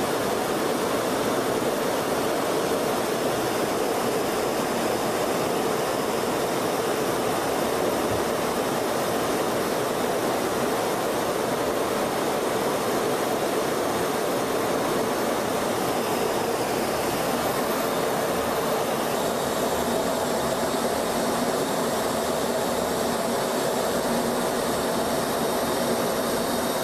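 Steady, even rushing noise of jet aircraft in flight, with a slight shift in its higher tones about nineteen seconds in.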